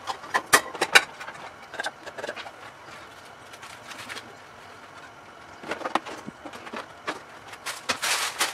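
Metal tongs set down and a knife cutting crispy deep-fried pork on a wooden cutting board: a quick cluster of sharp knocks in the first second, scattered clicks after, and more knocking and crunching near the end.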